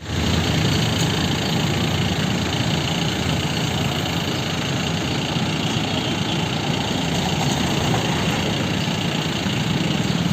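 A vehicle engine running steadily, with an even rush of noise and no siren heard.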